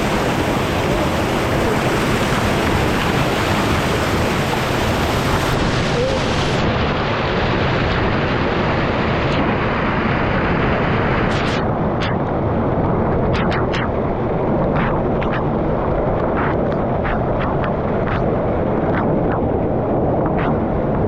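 A swollen river rushing, a loud steady wash of water noise, with short sharp splashy ticks from about nine seconds in.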